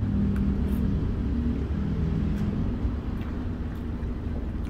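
A steady low rumble with a faint hum, and a few faint clicks.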